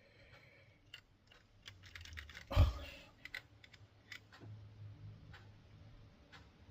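Scattered small clicks and taps of model locomotive parts being handled and fitted together, with one louder knock about two and a half seconds in.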